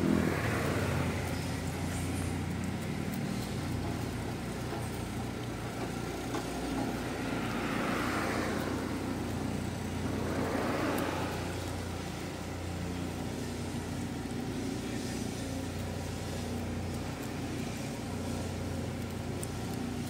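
Steady low engine rumble of motor traffic, with two broad swells of noise about eight and eleven seconds in.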